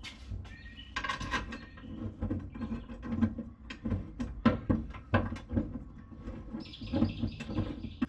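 Handling of a chrome battery tray and hold-down frame in a car boot: an irregular run of clicks and knocks as the metal parts are moved and set in place.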